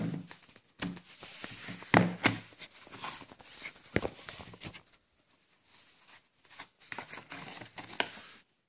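Hard plastic VHS case being handled and opened: rustling and scraping with a series of sharp clicks and knocks, the loudest about two and four seconds in.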